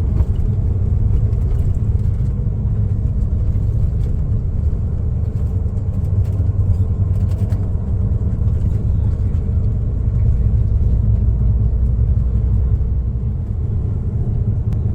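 Bus driving along the road: a steady low engine and road rumble.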